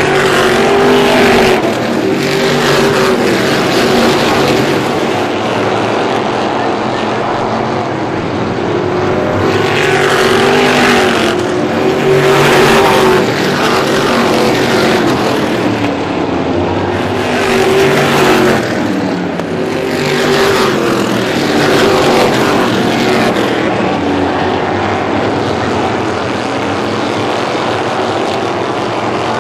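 A pack of race cars running at speed around an oval. The engines rise and fall in pitch and loudness as cars sweep past, with several louder passes, the loudest near the middle.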